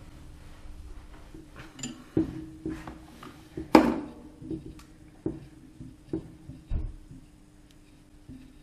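Metal hand tools and a steel stud being handled on a workbench: scattered clicks and knocks, with one loud ringing metallic clink about four seconds in. A faint steady hum runs underneath.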